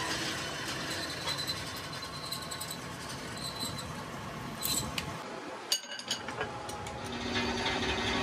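Metalworking workshop noise: machinery running steadily with scattered clicks and clinks of metal parts, broken off briefly about six seconds in.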